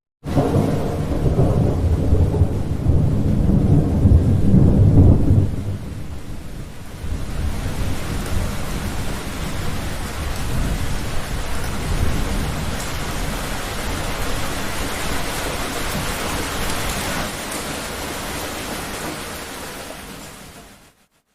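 Thunder: a loud low rumble that starts suddenly, then heavy rain hissing with quieter rumbling under it, fading away near the end.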